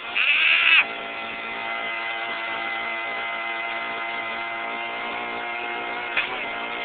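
Mini bike's small engine running at a steady speed while riding along, after a short loud burst in the first second.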